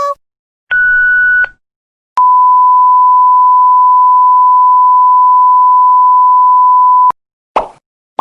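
Censor-bleep sound effects: a short beep about a second in, then a long, pure, steady bleep of about five seconds that cuts off sharply. Near the end, a brief knock.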